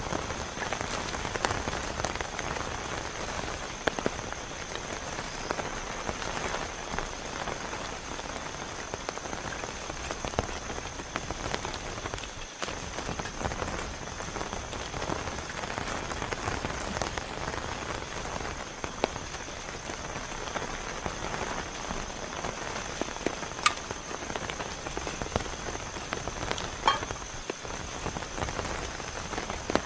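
Heavy rain falling steadily, with many single drops striking close by as sharp taps; two sharper strikes come near the end.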